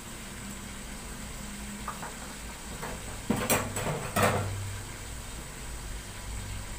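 Cooking-pan clatter: a few light clicks, then two louder knocks and rattles at an aluminium pan about three and four seconds in, over a steady low hum.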